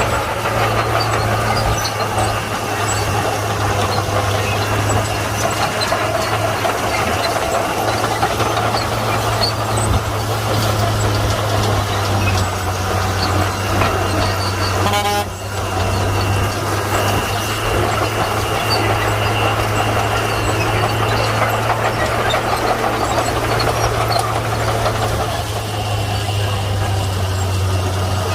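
Komatsu D41P crawler bulldozer's diesel engine running steadily with a continuous low drone, dipping briefly about halfway through.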